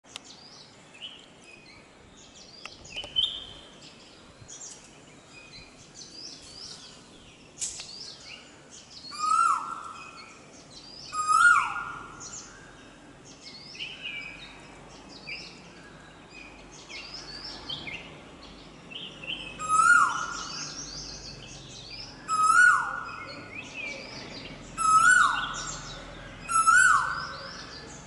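Male Asian koel calling: a loud held note that drops sharply at its end, repeated six times in two bouts, with other small birds chirping and whistling at a higher pitch throughout.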